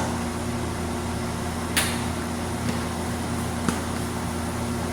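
Steady low mechanical hum, with a light click about two seconds in and another near the end.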